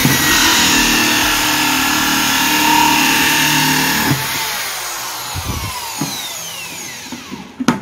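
Corded electric drill running a hole saw through a plastic bucket lid, a loud grinding cut with a steady motor hum. About four seconds in the cut breaks through and the load drops, and the drill's whine falls in pitch as it winds down, followed by a few light knocks and a sharp click near the end.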